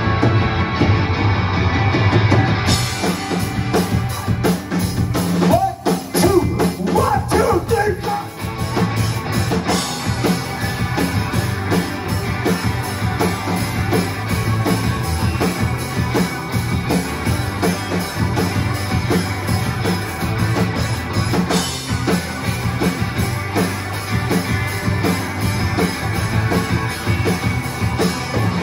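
Rock band playing live: two electric guitars, electric bass and a drum kit, with the cymbals and full drums coming in about three seconds in.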